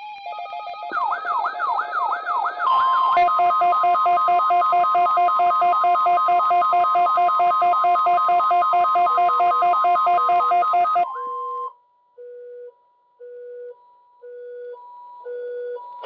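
NOAA weather alert radios going off together for a tornado-drill activation. Rapid repeating siren-like sweeps and fast pulsed electronic beeps sound over the station's steady 1050 Hz warning alarm tone. The sweeps and beeps stop about 11 seconds in and the tone soon after, and then a radio keeps beeping once a second in alternating pitches.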